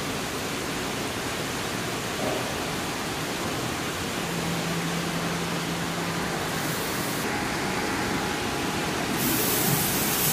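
Large dual-head CO2 laser cutting machine running a fabric cutting job: a steady rushing noise, with a low hum for a few seconds in the middle.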